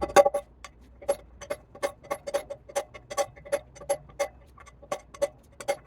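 Hammer tapping on metal, about three even strikes a second, each with a short ring: driving a dirt bike wheel bearing into the hub.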